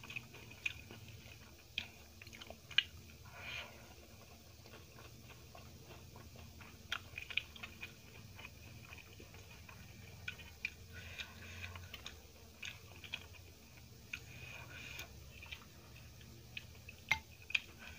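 Close-up eating sounds: chewing of rice and eggplant masala, with many scattered short sharp clicks as fingers mix the rice on a steel plate.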